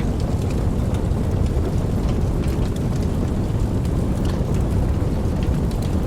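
Steady rain falling, most of its sound deep and low, with scattered single drops ticking sharply over it.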